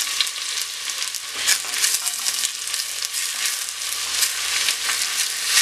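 Sliced onions sizzling in hot coconut oil in a pressure cooker, stirred with a wooden spatula. The dense crackling sizzle starts at once as the onions hit the oil.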